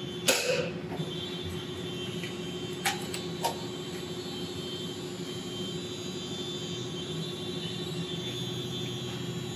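A foam dart blaster firing once about a third of a second in, a short sharp burst of air. About three seconds in come two light clicks from the blaster being handled, over a steady room hum.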